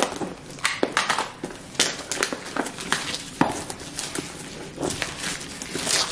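Plastic shrink-wrap being slit with a box cutter and pulled off a cardboard box: irregular crinkling and crackling with many sharp clicks as the box is handled.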